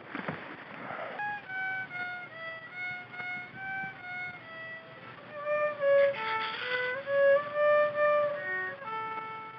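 A fiddle played solo: a tune of single bowed notes that starts about a second in and gets louder about halfway through.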